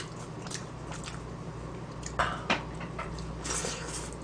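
Chewing and wet mouth sounds of someone eating dumplings close to the microphone, with a few soft smacks and clicks.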